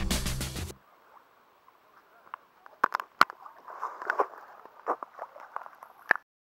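Electronic background music stops under a second in. Then comes the muffled sound of water heard through a camera held under shallow water, with scattered sharp clicks and crackles, which cuts off abruptly near the end.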